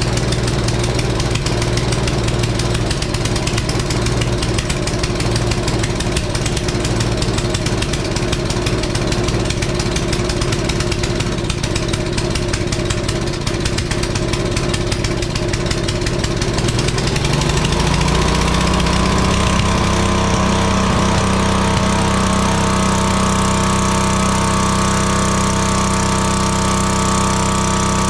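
Craftsman pressure washer's single-cylinder engine running with its air filter off. About 17 seconds in its speed rises smoothly and holds steady at the higher pitch, as the carburetor screws are set so that it runs smoothly.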